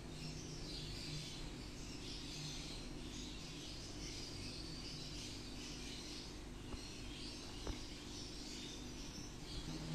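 Quiet room tone: a low steady hum and faint high hiss, with a few soft clicks about two-thirds of the way through as a spoon sets the filling down.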